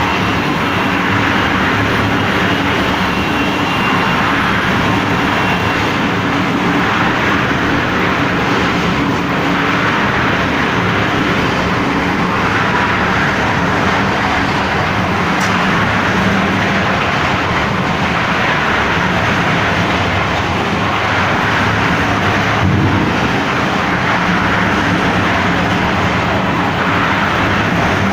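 Concrete mixer machine's engine running steadily at a constant speed.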